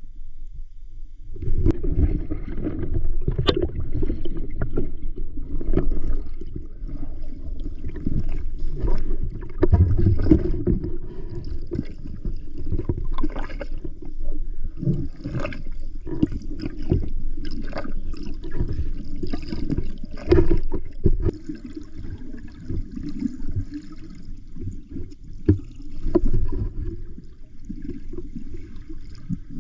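Muffled sea water sloshing and gurgling around the camera of a spearfisher, with irregular surges and an occasional sharp knock.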